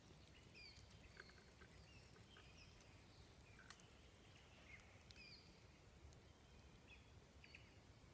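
Faint birdsong: scattered short chirps and whistles from small birds over a low, steady outdoor rumble, with a single brief click about three and a half seconds in.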